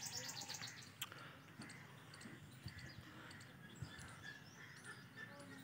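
Faint outdoor quiet with distant birds chirping in short calls, and a few soft thumps.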